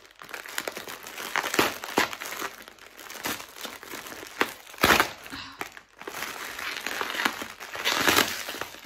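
Plastic packaging crinkling and crackling as it is unwrapped by hand, unevenly, with one sharper, louder crackle about five seconds in.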